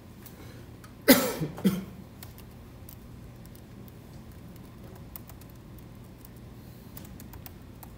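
A person coughs twice, close by, about a second in, over the steady low hum of a quiet room; a few faint clicks follow later.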